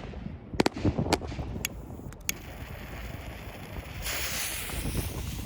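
The last few cracks of a string of small firecrackers ('Pebbles', a pack with salutes in it), sharp bangs spaced irregularly through the first two and a half seconds. A steady hiss sets in about four seconds in.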